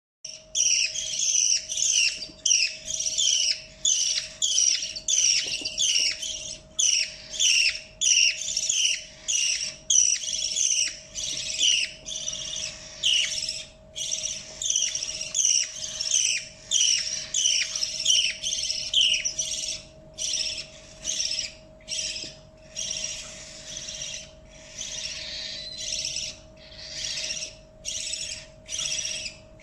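Baby budgie's begging calls, a rapid series of raspy chirps about twice a second, the sound of a chick asking to be fed. The chirps thin out and become more uneven near the end.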